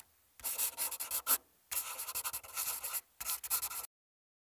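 Scratchy scribbling sound effect, like a marker or chalk writing quickly, in three spells with short gaps, cutting off suddenly near the end.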